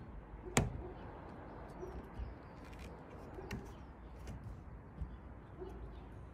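A single sharp knock about half a second in, then faint pigeon coos a few times over a steady low background hum.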